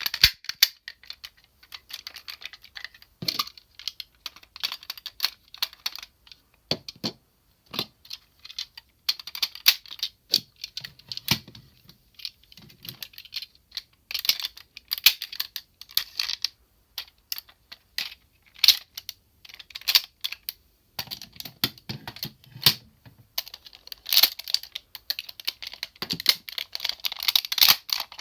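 Hard plastic parts of a DX Sirender toy clicking, tapping and knocking as it is handled and transformed: a long run of quick, irregular clicks with a few louder knocks among them.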